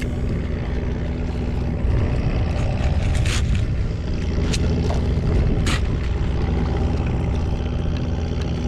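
Small Tohatsu outboard motor running steadily at low speed, a constant low hum, with three short sharp clicks in the middle.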